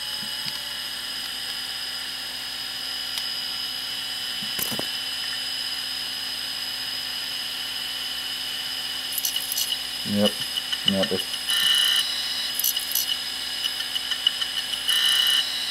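Quantum ProDrive ELS hard drive with its cover off, the spindle running with a steady high whine; from about nine seconds in the head actuator chatters and clunks in rapid bursts as it tries to seek. The drive's rubber crash-stop has deteriorated and the heads and platter are damaged.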